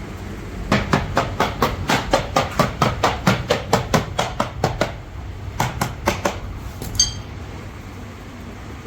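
Rapid hammering on metal, about five blows a second for roughly four seconds, then a short burst of three more and a single ringing strike near the end, over a steady low hum.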